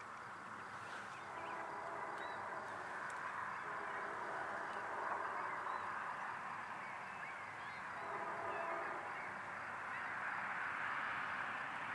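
A flock of geese honking: a continuous chorus of overlapping calls that slowly grows louder.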